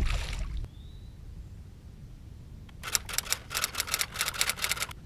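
Fishing reel being cranked to retrieve a crankbait: a quick run of rapid mechanical clicking about three seconds in, lasting about two seconds. It follows a brief rush of noise at the start.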